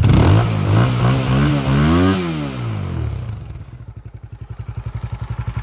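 Honda GB250 Clubman's single-cylinder four-stroke engine revved in a few throttle blips, the biggest about two seconds in, then dropping back to a steady idle with an even pulsing exhaust beat.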